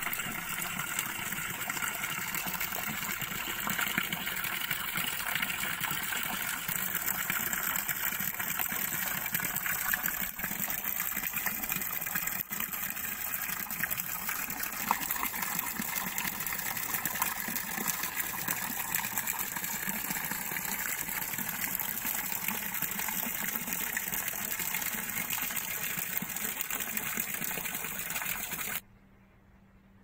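Steady rush of running water, cutting off abruptly near the end.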